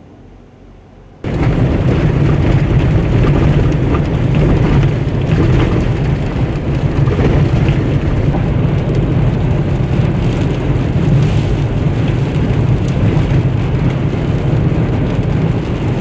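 Gusting wind in a dust storm, fairly quiet for about the first second, then a sudden cut to a loud, steady rush of wind and road noise from inside a vehicle driving through the storm.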